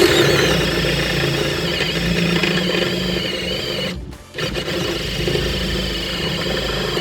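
Cordless drill running under load as it bores through thick dashboard metal, in two runs of about four and three seconds with a short stop between them.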